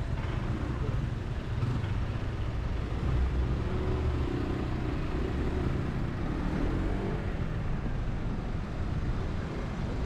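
Street traffic: a steady low rumble of cars, a bus and a scooter moving slowly in the lane alongside, with a faint engine hum rising and falling about halfway through.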